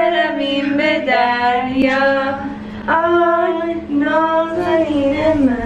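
A woman singing slow phrases of long held, gently wavering notes, with a steady low hum beneath.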